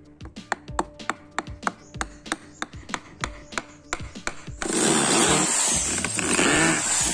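Electric hand drill running for about two and a half seconds, drilling into wood, starting a little past halfway. Before it, a quick run of sharp taps over background music.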